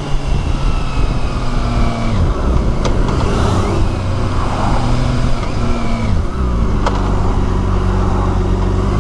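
BMW K1600B's 1,649 cc inline-six engine running under way, its pitch stepping up and down several times as it changes gear, and dropping about six seconds in. Steady wind and road noise lies under it, with two faint clicks.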